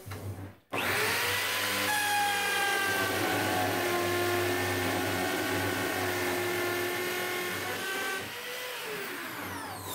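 Power drill in a drill guide boring a dog hole with a 3/4-inch carbide-tipped Forstner bit. The motor spins up about a second in, runs steadily as the bit cuts, slows near the end for a clean exit cut, and winds down with a falling whine.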